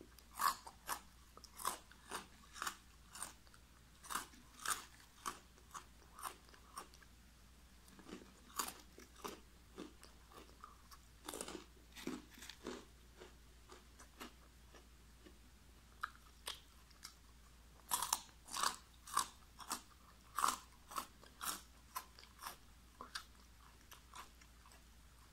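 Close-up chewing of crunchy yellow snack sticks: a long run of sharp crunches, about two a second, with a short pause a little past halfway.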